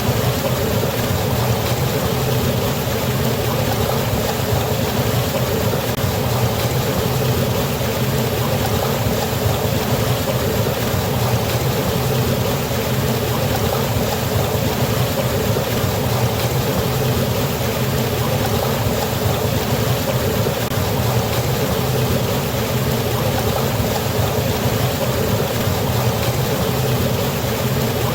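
Waterfall's rushing water running steadily, with a deep rumble under an even hiss.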